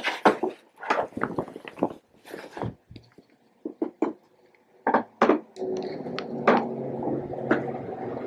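Crinkling rustle of a synthetic garment bag being handled and spread out, in quick irregular bursts. A steady low hum comes in about five seconds in, under a few last rustles.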